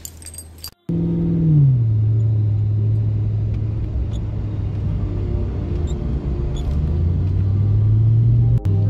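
1999 Ford Mustang GT's 4.6-litre V8 droning steadily, heard from inside the cabin while cruising. Its pitch drops about a second in, holds level, then climbs slowly near the end.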